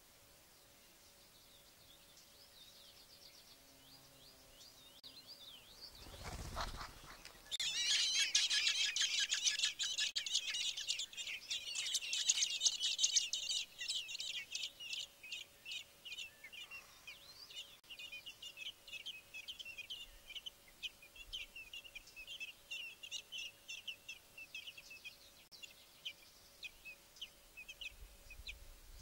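Fieldfare nestlings begging for food. Faint high calls are followed about six seconds in by a brief low thump, and then a loud, dense chorus of high, rapid begging calls that lasts several seconds before thinning into quieter rapid cheeping.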